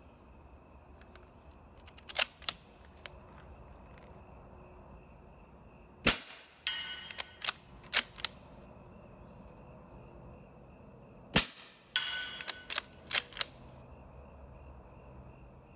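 Two suppressed shots from a Gear Head Works ONE bolt-action pistol, about five seconds apart. After each shot comes a quick string of metallic clicks as the bolt is worked to chamber the next round.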